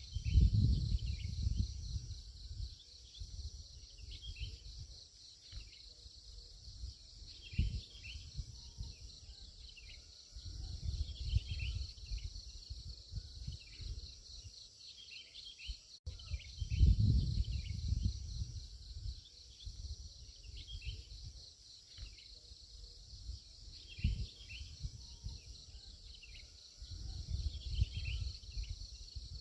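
Birds chirping in short, repeated falling notes over a steady, fast-pulsing insect trill. Bursts of low rumble come and go several times, loudest about a second in and again around seventeen seconds.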